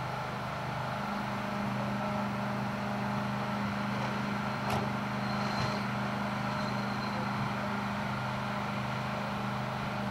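Steady low hum of an engine running at idle, with a single short click about five seconds in.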